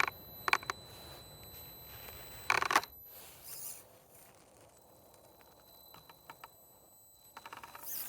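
Redcat Ascent 18 mini rock crawler's 380-size brushed motor and drivetrain whirring in a few short bursts of throttle as it tries to climb, then a few light clicks of the little truck on rock.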